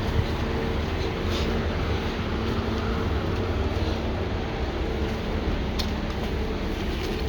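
Steady city street traffic noise: a constant low rumble with a steady hum over it.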